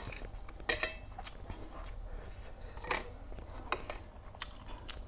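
Metal fork clinking and scraping against a stainless steel tray while it gathers up rice vermicelli. There are several sharp clinks, the loudest a little under a second in and others about three and four seconds in.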